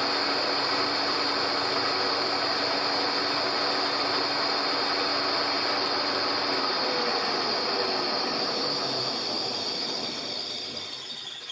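Beaver VBRP turret mill taking a slow, steady cut along the edge of thin O2 ground flat stock (gauge plate), a constant cutting noise with a high whine over it. It fades in the last second or two and then stops.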